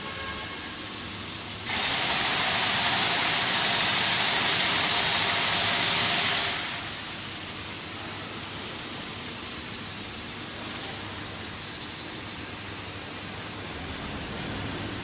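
Oxygen booster compressor running with a steady noisy hum. A loud hiss starts suddenly about two seconds in and fades out some five seconds later.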